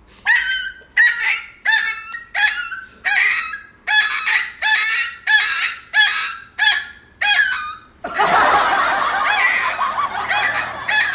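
Chihuahua puppy howling: a string of short, high-pitched yowls, about a dozen at a steady pace, running into a longer, rougher unbroken howl for the last three seconds.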